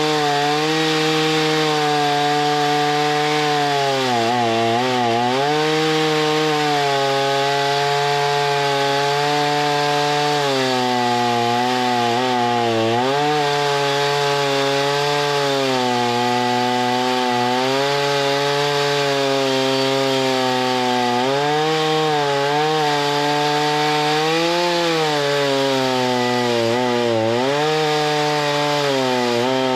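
Chainsaw running at full throttle while cutting wood, its engine note held high and steady and dipping briefly several times as the cut loads it.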